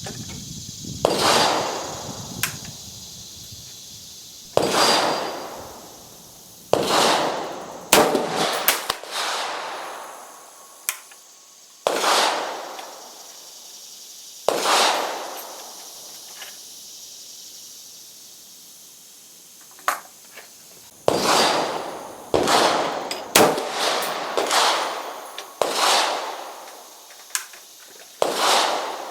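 Gunshots on an outdoor firing range: well over a dozen loud reports at irregular intervals, each trailing off in a second or two of echo, with a few fainter cracks among them.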